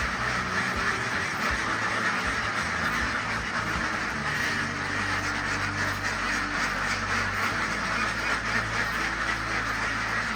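A flock of ducks quacking, many calls overlapping in a steady chatter.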